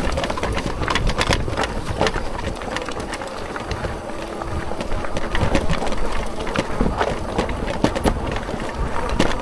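Fat tyres of a folding electric bike rolling over a loose stony trail. Stones give many irregular clicks and knocks over a steady low rumble.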